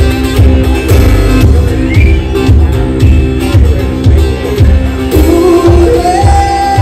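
Live one-man-band music: an acoustic twelve-string guitar is strummed over a foot-played kick drum beating about twice a second. A man starts singing about five seconds in.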